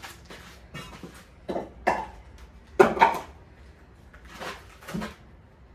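Timber beams knocking and scraping against each other and the bench frame as they are handled: several irregular thumps, the loudest about three seconds in.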